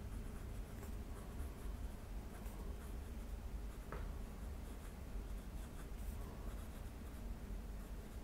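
Fine nib of a TWSBI Swipe fountain pen scratching faintly across paper in short strokes as words are written, with a slight pencil-like feedback rather than a glassy-smooth glide. One sharper tick about four seconds in.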